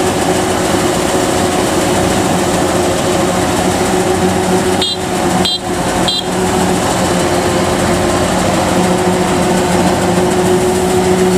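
Kubota DC-93 combine harvester's diesel engine and threshing machinery running steadily as it harvests rice in soft, muddy ground.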